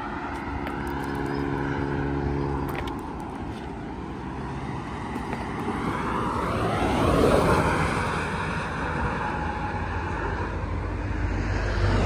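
Road traffic on a two-lane highway: engine hum and tyre noise of vehicles passing close by. One vehicle swells to its loudest about seven seconds in and drops in pitch as it goes past, and another approaches near the end.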